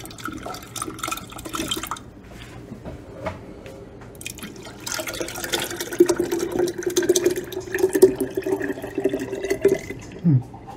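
Cherry juice pouring from a glass bowl into a glass swing-top jar of mashed cherries, a thick stream splashing and trickling in. The pour gets heavier about five seconds in.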